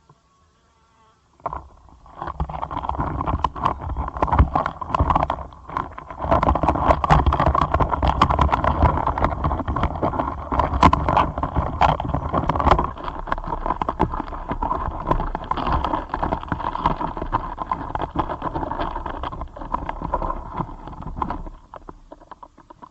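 Caucasus rhinoceros beetles close-miked during mating, making a dense, continuous scratching full of sharp clicks as their legs and shells rub and grip. It starts abruptly about a second and a half in, falls away briefly a few seconds later, and stops about a second before the end.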